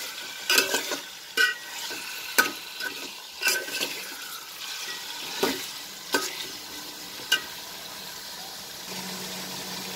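Raw chicken pieces and onions frying in hot oil in a metal pot with a steady sizzle, while a metal spatula stirs them, clinking and scraping against the pot about once a second. The stirring stops about two seconds before the end, leaving only the sizzle.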